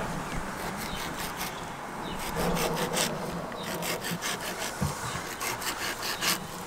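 Fillet knife cutting through a striped bass fillet to skin it, a run of short scraping strokes, several a second.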